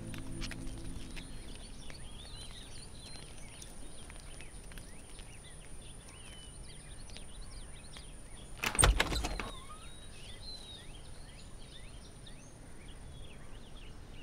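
Outdoor ambience with scattered bird chirps and a thin steady high tone. About nine seconds in, a door is unlatched and opened with a short burst of clicks and clatter, the loudest sound here.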